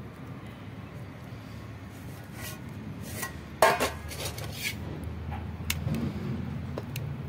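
Metal pot lid and a metal ladle clinking and clanking against a large metal cooking pot, with one loud clank about three and a half seconds in and a few lighter clinks around it, over a low steady rumble.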